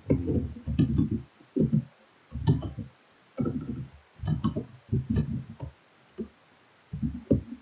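Computer keyboard typing in short bursts of keystrokes, the clicks coming with dull thuds.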